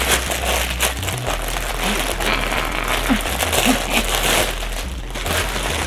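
Clear plastic poly bag crinkling and rustling as it is handled and pulled open by hand, with a clothing item inside.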